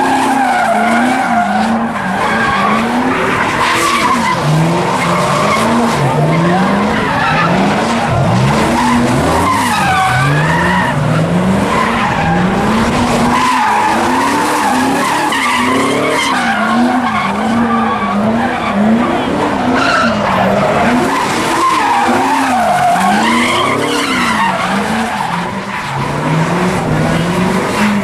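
A car doing donuts: its engine revs up and falls back again and again, about once a second, over a continuous wavering tire squeal.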